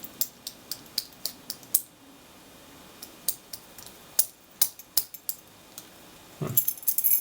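Scattered sharp metallic clicks and taps as a dimple lock cylinder's small parts and a key are handled during disassembly, with a quick cluster of clicks near the end.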